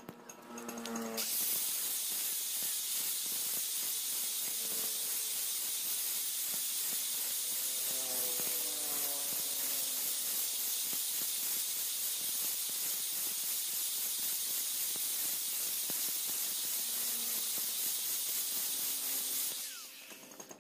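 Angle grinder disc grinding across the steel of a knife blade made from a brush-cutter blade, a steady, loud hiss. It starts about a second in and stops near the end.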